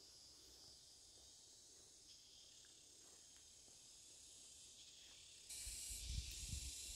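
Faint, steady high-pitched insect drone from the forest. About five and a half seconds in, a louder steady hiss sets in, with low rumbling bumps under it.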